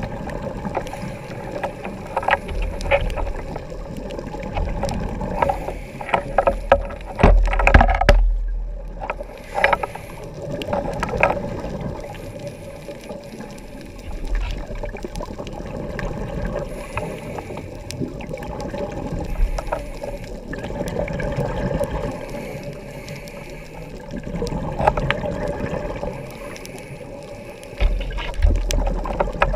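Underwater sound through a dive camera's housing: a scuba diver's regulator breathing, with exhaled bubbles rumbling and bubbling in swells every few seconds, and scattered clicks. The loudest swell comes about seven seconds in, and another builds near the end.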